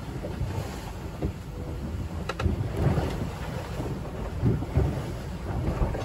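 Rough seas rushing and breaking along the hull of a small cruising sailboat beating hard upwind, with heavy wind buffeting the phone's microphone. The noise surges unevenly, with a few sharp hits.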